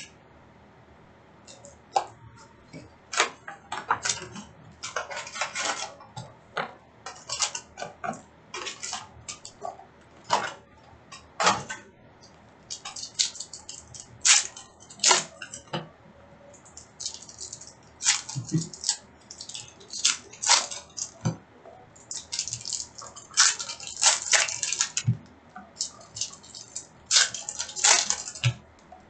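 Packs of Upper Deck hockey cards and the cards inside being handled: irregular crinkling and rustling of wrappers and card stock, with sharp clicks and snaps.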